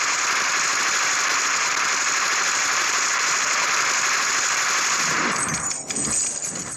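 Loud, steady, harsh noise without any clear pitch or beat, strongest in the upper-middle range. It thins out and wavers about five and a half seconds in, then cuts off abruptly near the end.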